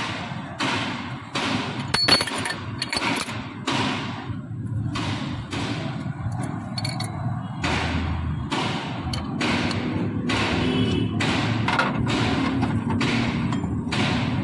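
Repeated sharp blows on metal, a little over one a second, like hammer strikes on the stripped engine block, over a low steady rumble.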